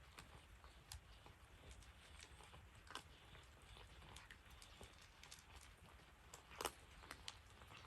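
Faint rain dripping: scattered irregular drips and taps, with one sharper tap about six and a half seconds in.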